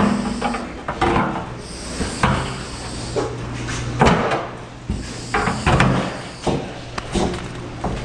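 Pigs being moved along a gated alley in a hog barn: metal pen gates clank and knock again and again as the pigs push past, over a steady low hum.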